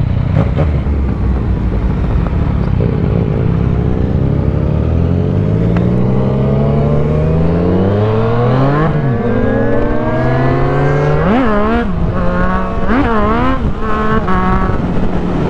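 Yamaha MT-09's three-cylinder engine with a full aftermarket exhaust, ticking over low at first, then pulling away and accelerating hard. The pitch climbs steadily, then drops and rises again at several quick upshifts in the second half.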